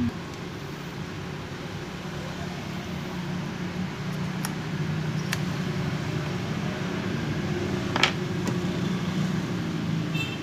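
Steady low, wavering mechanical hum like a fan or motor running, with a few light clicks and one sharper click about eight seconds in from handling the mixer's fader circuit board.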